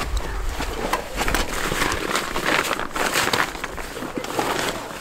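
Rustling and crinkling of rucksack and stuff-sack fabric as hands rummage inside the bag, with many small scrapes and ticks.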